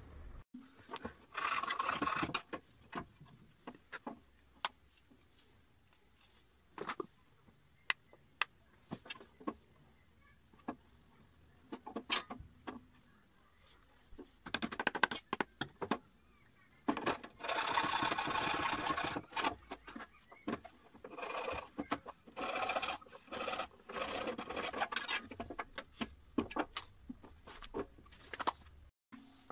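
Small wooden frame handled on a metal table-saw top: scattered knocks and clicks of wood, with several rough rubbing or scraping stretches lasting a second or two each, the longest a little past the middle.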